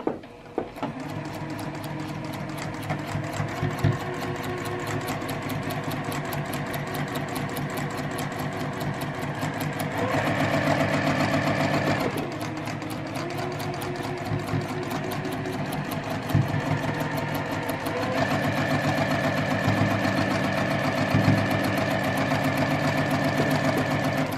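Sewing machine stitching a quarter-inch seam through pieced quilt fabric, running continuously with a fast, even patter of needle strokes. It speeds up and gets louder for a couple of seconds about ten seconds in, and again from about eighteen seconds in.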